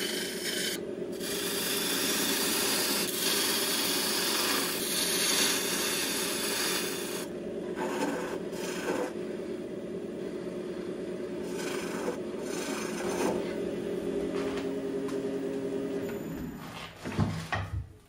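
Wood lathe running steadily while a bowl gouge cuts the outside of a spinning bowl blank: a loud rushing scrape of shavings peeling off, one long pass for the first several seconds, then a few shorter cuts. Near the end the lathe is switched off and its hum dies away, followed by a few knocks.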